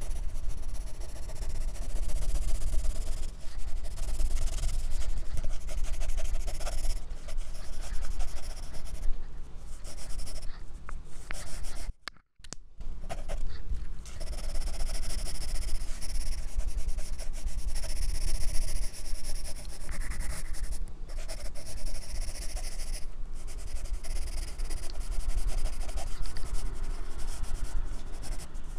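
Graphite pencil shading on drawing paper: continuous scratchy rubbing strokes, broken by a brief silence about twelve seconds in.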